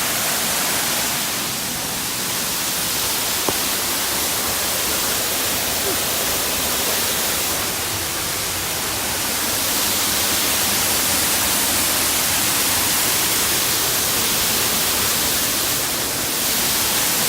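Waterfall: a steady rush of falling water, with a single sharp click about three and a half seconds in.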